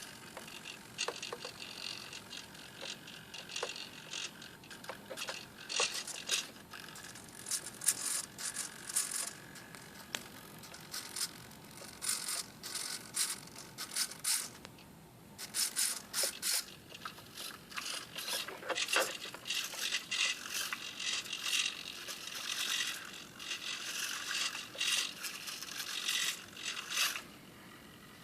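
Small hobby servo motors of a 3D-printed EEZYbotARM robotic arm whirring in many short, irregular bursts as the arm moves, with a brief pause midway and stopping near the end.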